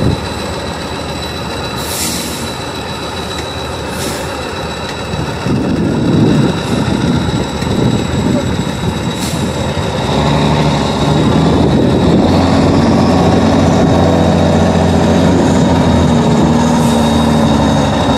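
Tatra 815 6x6 trial truck's air-cooled diesel engine working hard as the truck climbs a steep sand bank. Its note is rough at first, then grows louder about halfway through and holds steady.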